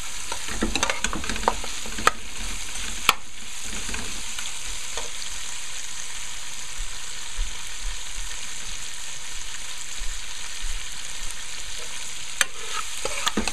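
Beef pieces coated in curry masala sizzling steadily as they fry in a metal pot. A metal spoon stirs them, clicking and scraping against the pot in the first few seconds and again near the end.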